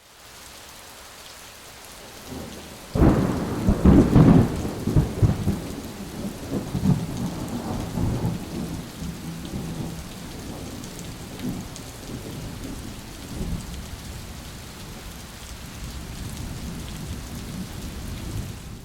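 Thunderstorm: steady rain throughout, with a loud clap of thunder about three seconds in that rumbles on for several seconds, and a fainter rumble of thunder later.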